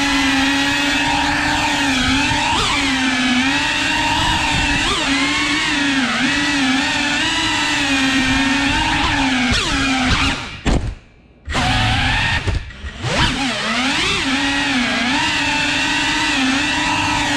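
Cinewhoop FPV drone's brushless motors and ducted propellers whining steadily, the pitch wavering up and down with throttle. About ten and a half seconds in the motors cut out for about a second, blip briefly, and then spool back up.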